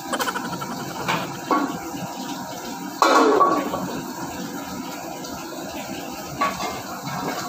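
Kitchen cookware noises: a few short knocks of metal pans and utensils, and about three seconds in a sudden loud splash of water into a metal pan that fades over about a second.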